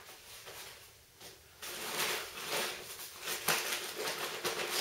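Rustling of gear being handled inside a backpack, with small knocks, starting about a second and a half in.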